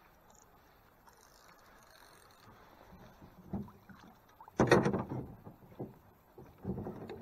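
Water splashing and knocks at the side of a small rowboat while a hooked trout is fought next to the boat. The loudest splash comes a little under five seconds in, with smaller ones about a second before and two seconds after.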